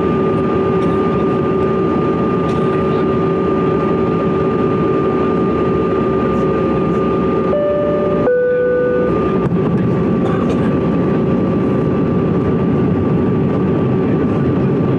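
Steady cabin roar of a CRJ-200 in flight, with the whine of its rear-mounted GE CF34 turbofans as steady tones over a loud rush of air. About eight seconds in the tones shift and the rushing noise dips for about a second before returning.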